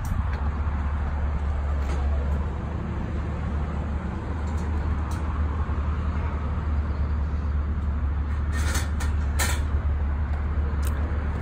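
Steady low rumble of road traffic and vehicle engines, with two brief clicks about a second apart near the end.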